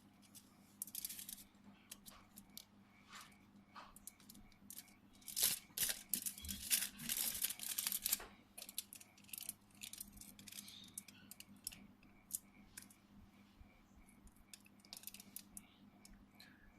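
Small handling and tool noises from close-up electronics work: scattered clicks and scraping, busiest about five to eight seconds in, over a faint steady hum.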